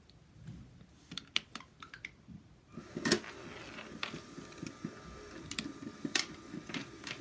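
A few sharp plastic clicks, then about three seconds in a LEGO Mindstorms motor starts and spins a LEGO plate. It runs with a steady whirring hum and irregular clicks and rattles from the plastic parts.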